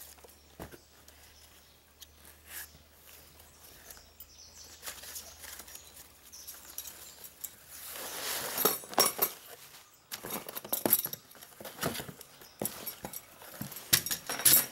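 Shredded paper packing fill and a cardboard box rustling and crinkling as hands dig through them, faint at first and louder from about halfway. A few light metallic clinks come near the end.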